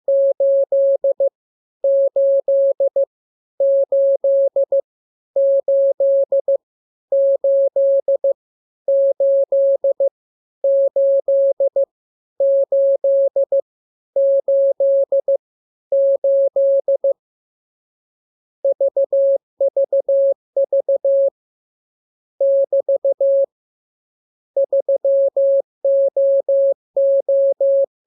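Morse code sent as a keyed audio tone at one steady pitch, in short dits and longer dahs. One character is sent about ten times in a row, evenly spaced, as a receiving drill; after a short pause other characters follow.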